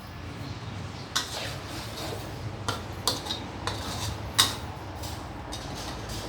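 Metal kitchen utensils clinking against cookware: a handful of sharp clinks, the loudest about four seconds in, over a steady low hum.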